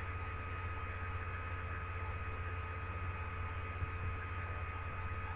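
Steady low electrical hum with an even hiss and a few faint steady high tones, the background noise of a home recording setup between spoken remarks.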